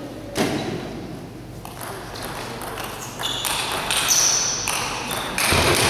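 Table tennis rally: the ball clicking in a quick string of sharp hits off the paddles and the table.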